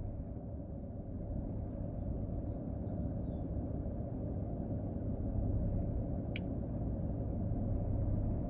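Steady low rumble of a parked car idling, heard from inside the cabin, with one sharp click about six seconds in.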